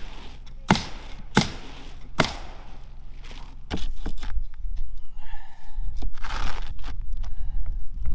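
Pneumatic roofing nailer firing four sharp shots, a little under a second apart, nailing down the starter strip of asphalt shingles. After that, wind rumbles on the microphone.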